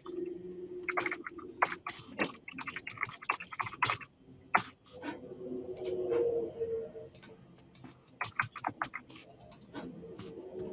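Computer keyboard typing, quick runs of keystrokes in bursts with short pauses between them, as a username and then a password are entered at a sign-in page.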